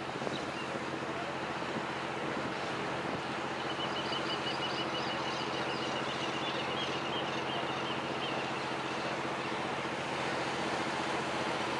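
Engine of a SIM SR-68 rigid-hull inflatable patrol boat running steadily at speed, a low, even drone over the rush of water from the planing hull.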